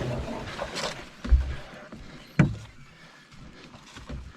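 Two hollow knocks against a canoe hull about a second apart, the second sharper, over faint rustling as the canoe and gear are handled.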